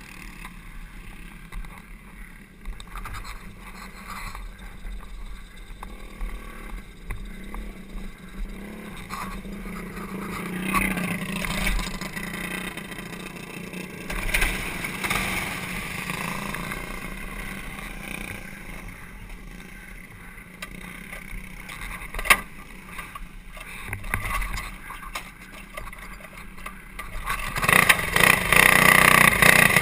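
Small single-cylinder kart engines hum steadily at a low level, with one sharp knock about three-quarters of the way through. Near the end the kart's own Honda GX200-clone single-cylinder four-stroke engine suddenly goes loud and stays loud.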